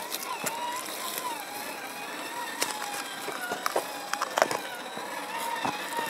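Traction Hobby KM5 1/8-scale RC crawler's electric motor and gears whining, the pitch wavering up and down with the throttle, as it crawls over rock. Scattered clicks and knocks of the tyres and chassis on stones, loudest in a short cluster a little past the middle.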